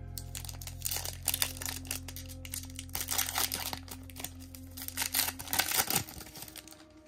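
Foil wrapper of an NBA Hoops trading-card pack crinkling and tearing as it is ripped open by hand: a dense run of crackles for several seconds that dies down near the end.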